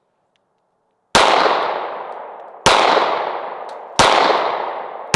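A Glock 19 9mm pistol firing shot after shot, about a second and a half apart, three shots with a fourth just at the end, each report dying away in a long echo. The pistol, once buried in mud, now cycles every round with a clean magazine and fresh 147-grain +P ammunition.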